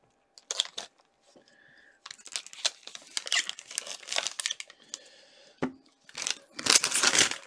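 Foil wrapper of a 2017-18 SP Game Used hockey card pack crinkling and tearing as it is handled and opened by hand, in irregular bursts, loudest near the end.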